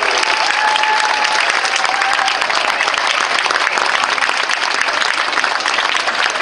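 Large audience applauding, a dense steady patter of many hands clapping.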